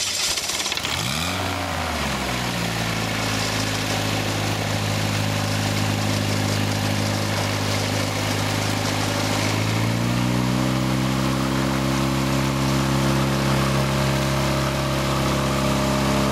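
Viking aircraft engine, a Honda-based four-cylinder, driving the pusher propeller of a gyroplane just after starting. It revs up and back down once about a second in, then idles steadily, and about ten seconds in steps up to a slightly higher steady speed, with a steady hiss of air over it.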